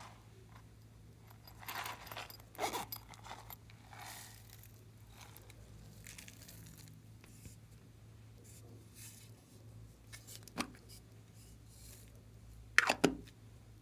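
Hands handling small plastic topping containers and sprinkling toppings over a tray of slime: scattered crinkling and scraping, a sharp click about ten seconds in, and a louder pair of clicks near the end.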